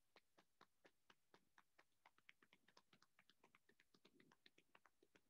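Faint, rapid hand taps on the legs, about four a second, even and steady.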